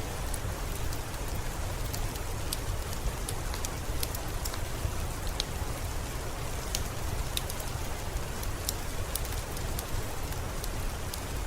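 Steady rain with a low rumble underneath. Scattered sharp clicks and pops from a crackling wood fire sound through it at irregular intervals.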